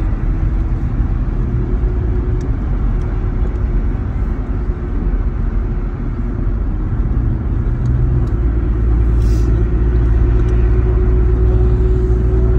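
Road and engine noise inside a moving vehicle's cabin at highway speed: a steady low rumble with a constant hum, growing slightly louder after about eight seconds.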